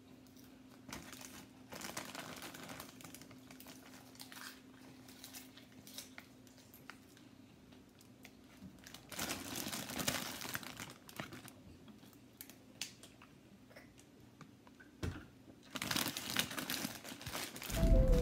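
Thin plastic bag of popcorn crinkling and rustling as popcorn is tipped from it into the mouth and chewed, in scattered bursts, loudest about ten seconds in and again near the end. Music comes in just before the end.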